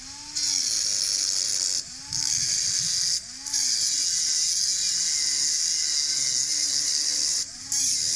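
Angle grinder with a cutoff wheel cutting a relief slot into quarter-inch-thick steel plate: a loud, steady high hiss of the wheel in the steel. It breaks off briefly three times as the wheel lifts from the cut, the motor's hum swelling and falling at each break.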